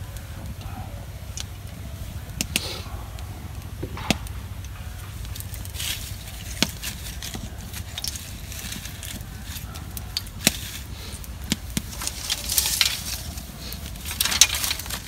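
Wood-and-straw fire crackling in a clay earthen stove, with sharp pops at irregular intervals. Dry straw and sticks rustle as they are pushed into the fire near the end.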